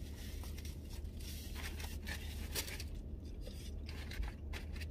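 Faint rustling and handling noises, short scattered crinkles and rubs, over a steady low hum.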